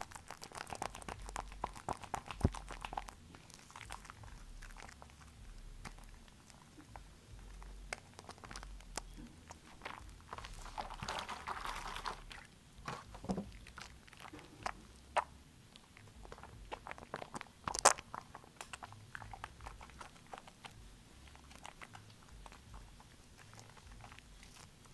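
Wet squishing and crackling of soap foam as a hand squeezes and kneads a soapy washcloth in a pan of sudsy water, with many small pops and squelches. Around the middle comes a fuller, splashier swish of the hand plunging into the water, and a little later a single sharp tap.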